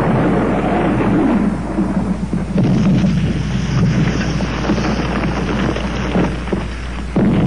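Landmine explosions: a sudden blast at the start, then a continuous rolling rumble with crackling, and another sudden blast near the end.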